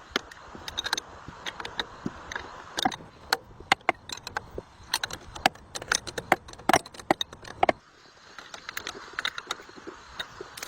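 A run of irregular sharp clicks and clinks, a few per second, with a short pause about two-thirds of the way through.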